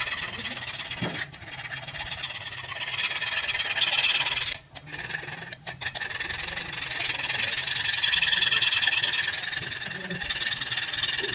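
A sharpening file rasping back and forth along the edge of a rusty curved steel blade, metal scraping on metal, as the edge is sharpened by hand. The filing goes on steadily, rising and falling in loudness, with brief breaks about one second in and again around four and a half and five and a half seconds in.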